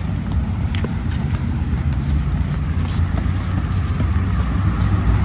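Footsteps of several people walking on a paved path: scattered light taps and scuffs over a steady low rumble.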